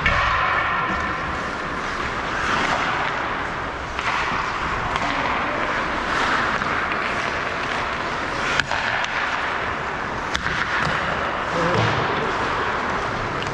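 Ice hockey skate blades scraping and carving on the ice in surges every second or two, with two sharp knocks about two-thirds of the way through.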